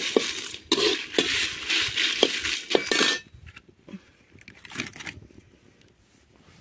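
A metal spatula scraping and clinking against a kadhai as dried red chillies are roasted in it. The stirring stops about three seconds in, leaving only a few faint clicks.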